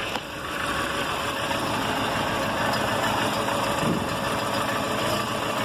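Chevrolet Zafira's 2.0 eight-valve four-cylinder engine running; it gets louder about half a second in and then holds steady. The owner hears a strange noise from it when revving, with the engine sort of misfiring and feeling weak.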